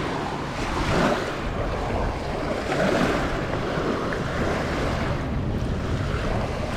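Lake waves washing onto a sandy shore in swells, with wind buffeting the microphone.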